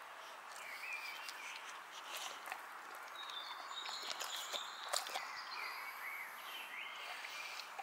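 Boxer dog biting and chewing a whole cucumber: a run of crisp crunches, the loudest about five seconds in. Birds sing in the background.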